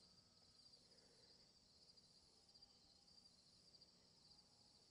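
Near silence, with a faint, steady high chirring of insects in the background.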